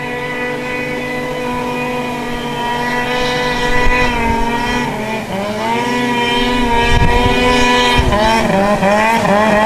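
Snowmobile engine running at high revs while skimming across open water. Its pitch holds steady, dips and climbs back about halfway through, then wavers down and up several times in quick throttle changes near the end.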